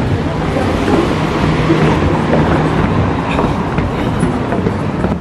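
Wind buffeting the microphone, a loud steady rumble, with footsteps going down wooden stairs.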